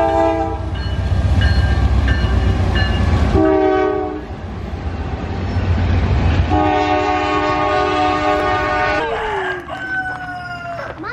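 Diesel freight train passing close by: the locomotive's multi-note air horn sounds in several short and long blasts, the last one long, over the heavy low rumble of the rail cars. Near the end the train sound gives way to a rooster crowing.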